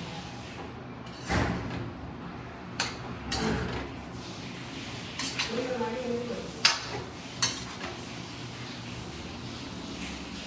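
Kitchen utensils and pots clinking and knocking: a handful of separate short, sharp clatters spread over several seconds.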